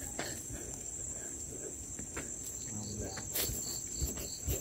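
Crickets chirring in a steady, high, even trill, with a couple of faint knocks near the end.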